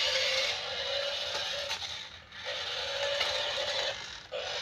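Toy remote-control transforming car's small electric drive motors and plastic gears whirring steadily as the car spins on a tiled floor, stopping briefly twice, about two seconds in and near the end.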